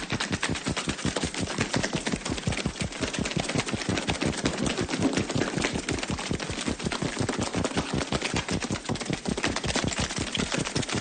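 A rapid, even train of clicks, several a second, running steadily like a machine.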